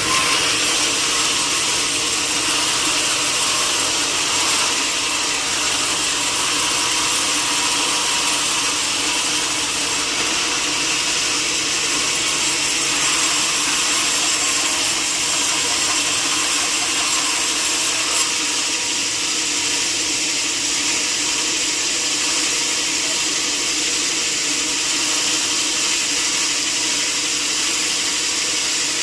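Sawmill saw running steadily through a log, a continuous loud whine and hiss of the blade cutting wood.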